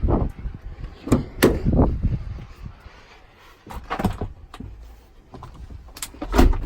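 A string of sharp knocks and clicks, the loudest a pair of thumps about six seconds in.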